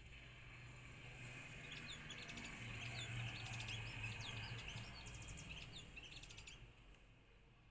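Sunbird chirping: a quick run of short, high chirps and twittering notes, starting about two seconds in and stopping near the end, over a faint low hum.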